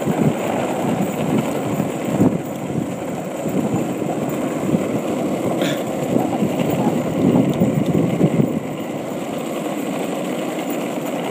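Santa Cruz Cruzer skateboard wheels rolling steadily over the road surface while the board is towed along, with one brief higher sound about halfway through. The rolling eases slightly for the last few seconds.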